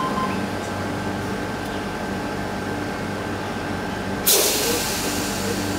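Sydney Trains Tangara electric train standing at the platform with its doors shut, its onboard equipment humming steadily. About four seconds in comes a sudden loud hiss of compressed air from the train, fading over about a second.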